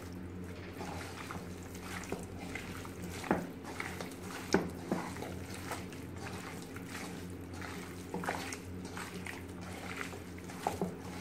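Hands squishing and turning chicken pieces through a wet yogurt-and-spice marinade in a steel bowl: soft wet squelches with a few louder knocks, over a steady low hum.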